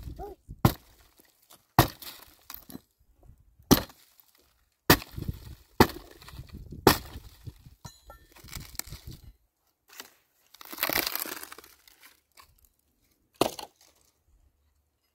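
Axe chopping a dry, dead stump and its branches: six sharp strikes in the first seven seconds, then a longer stretch of dry wood cracking and splintering, and one more strike near the end.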